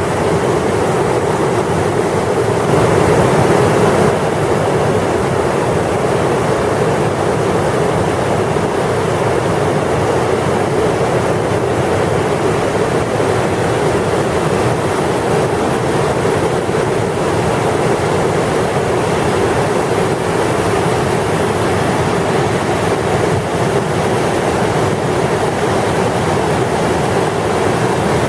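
Whitewater rapids of a river slalom course rushing steadily, a constant dense noise of water, briefly a little louder about three seconds in.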